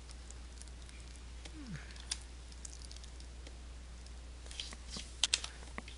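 Faint computer keyboard keystrokes: a few scattered clicks, with a short run of them about five seconds in.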